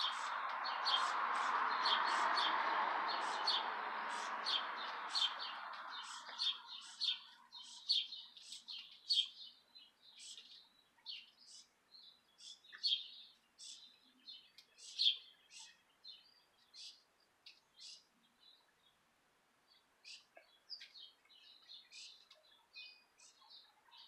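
Small birds chirping: short, high chirps repeating a few times a second. A rushing noise is under them at the start and fades out over the first several seconds.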